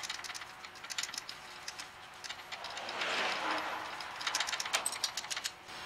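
Socket ratchet on a long extension clicking as a drive shaft flange bolt is turned: two runs of quick clicks, at the start and again near the end, with a scraping rustle between them about three seconds in.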